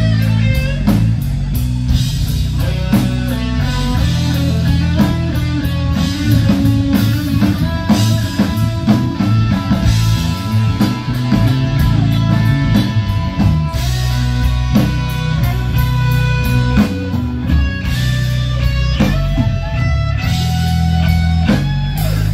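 Rock band playing an instrumental passage: electric guitar with bass and drums. The music stops suddenly at the very end.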